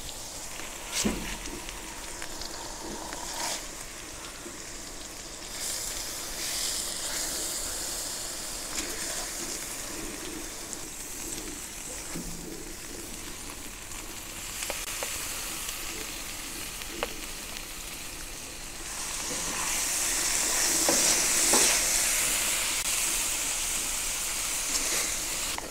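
Fat and onions sizzling steadily on a hot ceramic-coated gas griddle plate, with a few light spatula scrapes and taps. The sizzle grows louder in the last third.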